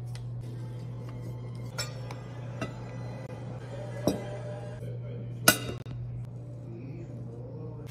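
Ceramic plates clinking against the table and other dishes as they are set down, four sharp clinks with the last the loudest, over a steady low hum.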